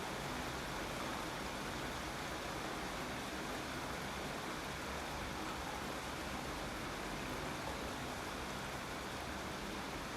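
Steady rain falling, an even continuous hiss with no distinct drops or thunder.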